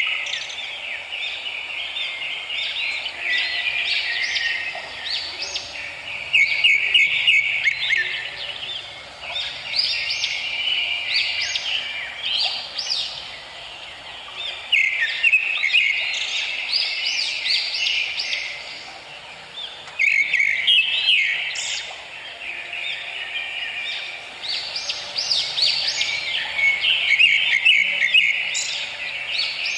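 Birds chirping and singing in quick, overlapping high sweeping notes, in louder and quieter stretches.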